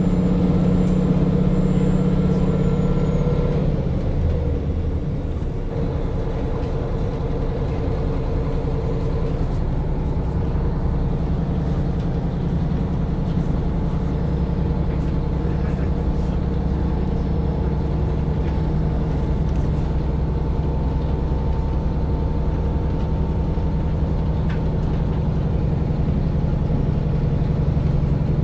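KiHa 40 diesel railcar's engine idling at a standstill, a steady low hum. About four seconds in the note changes and settles to an even idle.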